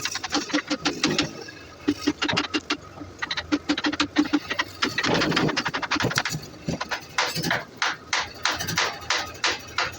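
Repeated sharp knocks, about three to four a second in the second half, interrupted by short pulsing sounds.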